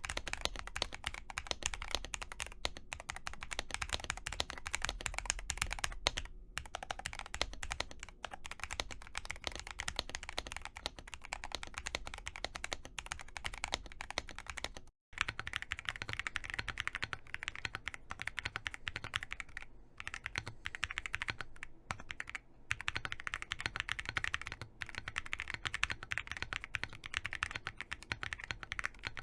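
Continuous typing on Higround mechanical keyboards, a fast, steady patter of key strikes. There is a momentary break about halfway through, after which the keystrokes sound slightly brighter, as a different board takes over.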